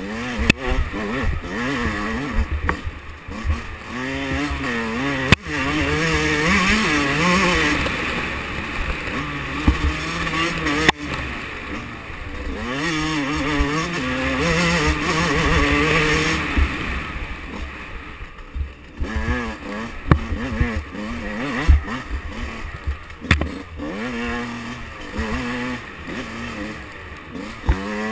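2005 Yamaha YZ125's single-cylinder two-stroke engine revving up and down as the bike is ridden over a bumpy dirt trail, loudest in the middle stretch. Scattered sharp knocks and a low rumble come through over the engine.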